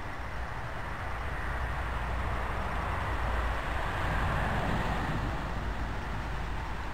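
A passing vehicle's steady rumble and tyre hiss, swelling to a peak about four seconds in and then fading.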